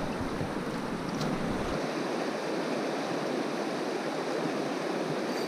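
Steady rush of a flowing river. A low rumble under it stops after about a second and a half.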